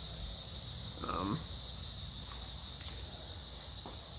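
Steady high-pitched insect chorus, like crickets, running without a break, with a short voice-like sound about a second in.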